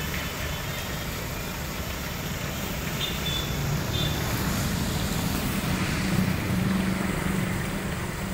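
Steady roadside traffic noise, with motor vehicle engines running on the street.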